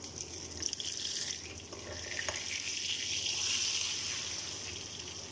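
Eggplant and sardine mixture sizzling in hot oil in a nonstick frying pan as it is turned over with a spatula. A steady hiss, with a few light clicks of the spatula in the first half.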